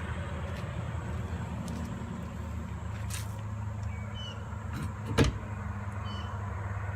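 Steady low mechanical hum with one sharp knock about five seconds in, and a few faint, short, high chirps.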